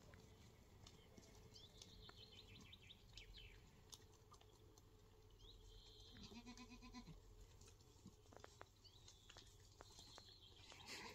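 Lambs bleating faintly, a few short calls with the clearest about six seconds in, against near silence.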